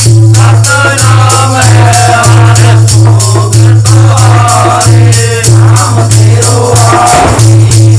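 Men singing a Punjabi devotional hymn together, accompanied by a dholak drum and a rattling percussion that keeps a steady beat.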